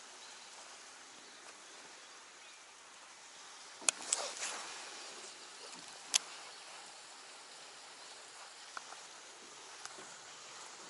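Faint steady outdoor hiss, broken by sharp clicks from fishing tackle being handled in a small boat: a pair of clicks with a short rattle about four seconds in, a single click about six seconds in, and fainter ticks near the end.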